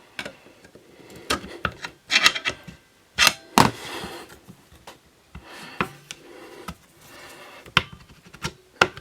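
Brake shoes and return springs of a BMW R 51/2 simplex drum brake being worked onto the backing plate by hand: irregular metal clicks, scrapes and knocks, with a few louder sharp clacks as parts seat.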